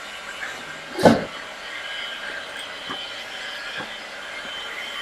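Small clicks and one sharp knock, about a second in, from handling screws and the MacBook Air's parts during reassembly, over a steady hiss with a faint high whine.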